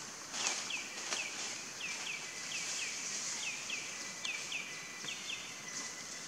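A bird calling in short descending chirps, mostly in pairs, repeating every half second or so, over a steady high drone of insects. There are a couple of soft rustles near the start.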